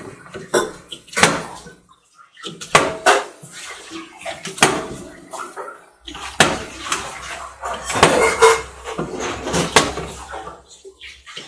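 Irregular sharp knocks and clacks of plastic water bottles landing on a glass tabletop after flips, mixed with plastic puzzle cubes being set down and stacked on the glass.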